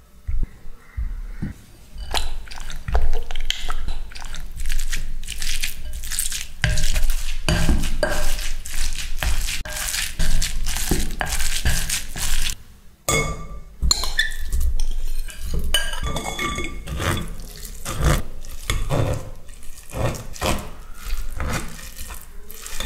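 A potato masher mashing boiled egg whites in a glass bowl: rapid knocks and scrapes against the glass. About thirteen seconds in, this changes to a metal spoon pressing and scraping the mashed egg through a wire-mesh sieve, with light metallic ringing.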